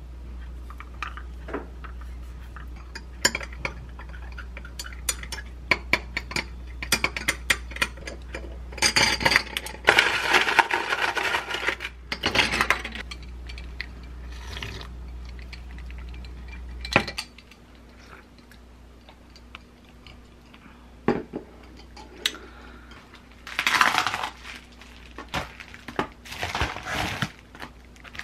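Repeated light clinks against a glass mug as grapefruit-honey black tea concentrate is mixed into strongly brewed Earl Grey, with a denser rattling stretch in the middle. Later, a few bursts of paper packaging rustling.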